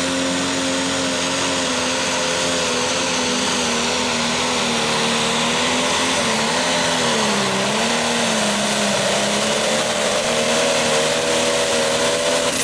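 Turbocharged diesel engine of a John Deere pro stock pulling tractor at full power while pulling the sled, with a steady high turbo whistle over the engine. The engine pitch dips and recovers several times, and the whistle and engine note drop away suddenly at the end as the throttle is cut.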